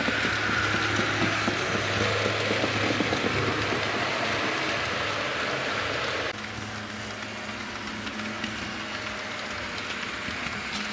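Märklin H0 model freight train running on model track: a steady rolling noise with rapid fine clicking and a low hum. About six seconds in the sound drops suddenly to a quieter running noise.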